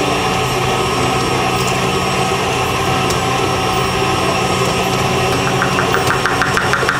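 Electric stand mixer running steadily, its beater creaming softened butter and sugar together. A fast rhythmic ticking joins in about five and a half seconds in.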